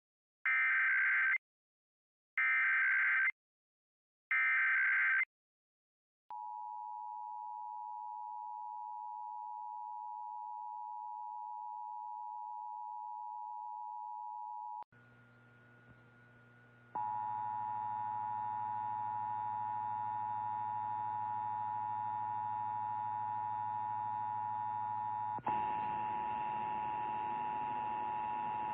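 Emergency Alert System test signal. Three short screechy SAME data-header bursts are followed by the steady two-tone EAS attention signal. After a brief low hum, the two-tone attention signal sounds again, louder, with a hum beneath it.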